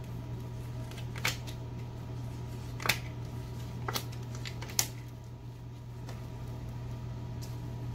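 Tarot cards being dealt and laid down on a wooden table: a few short, crisp card snaps a second or so apart, over a steady low hum.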